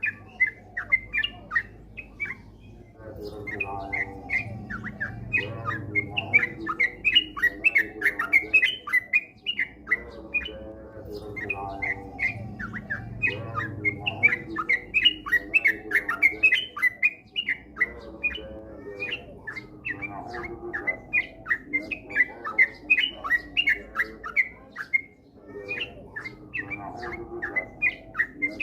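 Yellow-vented bulbuls (trucukan) singing: quick chirping notes repeated in rapid, almost unbroken runs, with a lower warbling that swells and fades every few seconds.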